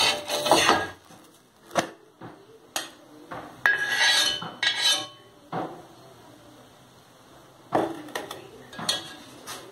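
A spatula scrapes across a flat griddle pan and a stainless steel plate clinks against the pan as a cooked omelette is transferred. There is a scrape right at the start and a longer scraping stretch about four seconds in, with scattered sharp metal knocks and clinks between and after.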